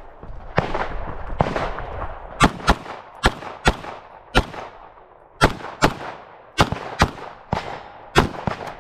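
A compensated 9mm Glock pistol firing rapidly, mostly in quick pairs a few tenths of a second apart, about a dozen shots in all, each with an echoing tail.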